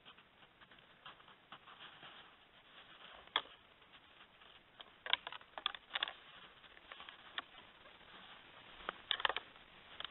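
Antlers of two mule deer bucks clicking and clacking as they spar with antlers locked: a scatter of sharp knocks, loudest about three and a half seconds in, around five to six seconds, and in a quick cluster near nine seconds.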